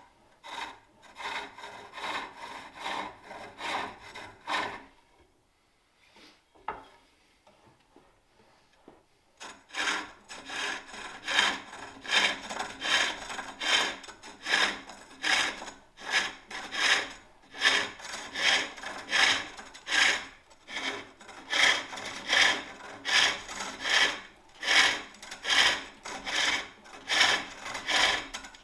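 A turning tool cutting a wooden bowl on a spring-pole lathe, one rasping cut with each treadle stroke, a little more than one a second. The cutting stops for a few seconds about five seconds in, with a single knock, then goes on steadily.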